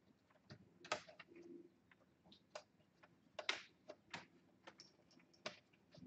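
Faint, scattered small clicks and taps of plastic laptop parts and cable connectors being handled and fitted inside an open laptop chassis, the two sharpest clicks about a second in and about three and a half seconds in.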